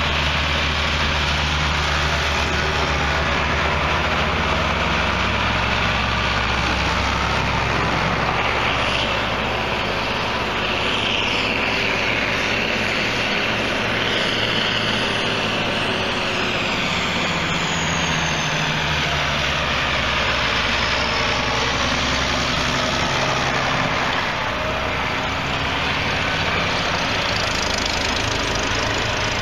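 Tractor engines running as a line of antique farm tractors drives past one after another, the engine sound changing as each one comes by.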